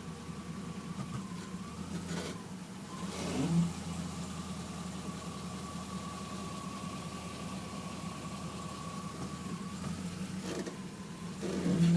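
Chevrolet Camaro running, with a steady engine hum and a thin, steady high whine over it. Two louder, brief noises come about three and a half seconds in and again near the end. The owner takes this for an unwanted noise, possibly from the brakes.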